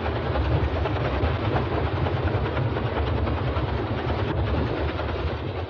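A hundred-year-old water wheel turning under a full flow of water, the water pouring onto the buckets and splashing off in a steady rush with a heavy low rumble underneath.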